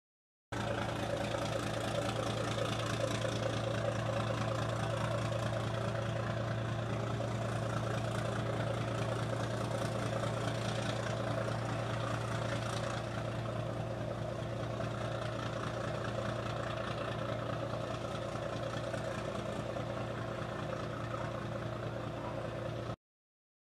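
Fishing boat's engine running steadily at low speed: a low drone with a fast, even chugging, slightly quieter about halfway through.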